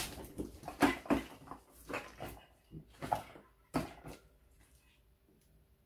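Small cardboard box being picked up and handled: a run of short scrapes, rustles and knocks of cardboard during the first four seconds, then near quiet.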